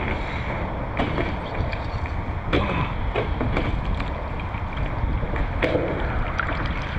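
Wind buffeting the microphone of a camera mounted at water level on a kayak, with choppy water lapping close by and a few sharp knocks about a second in, near the middle, and near the end.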